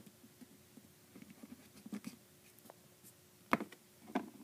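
Small handling noises of craft pieces being moved on a tabletop: faint scattered ticks and rustles, with a sharp tap about three and a half seconds in and a softer one near the end.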